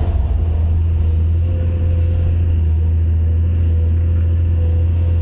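Excavator diesel engine running steadily, a constant low drone with a faint higher whine above it.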